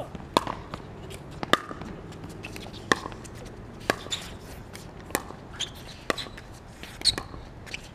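Pickleball paddles hitting a plastic pickleball back and forth in a rally: sharp pops about one a second.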